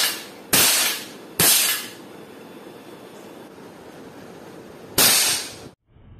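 Toy cap gun fired four times: a sharp crack right at the start, another about half a second in, a third about a second and a half in, then a fourth about five seconds in. Each crack rings briefly and dies away.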